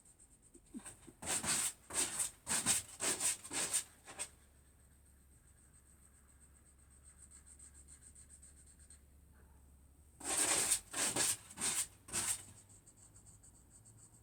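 Back-and-forth colouring strokes rubbing on paper: a run of about six strokes, a pause of several seconds, then another run of about five.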